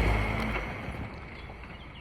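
VW Tiguan driving, loudest at the start with a deep rumble that dies away within the first second. A few faint bird chirps come in near the end.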